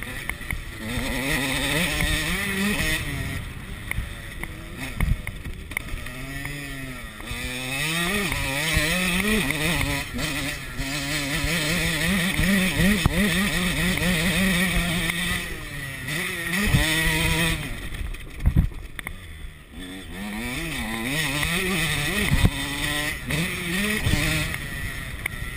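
KTM 85 SX two-stroke single-cylinder engine under riding load, heard from the rider's chest, its pitch rising and falling again and again with throttle and gear changes. A few sharp knocks cut through near the middle and end.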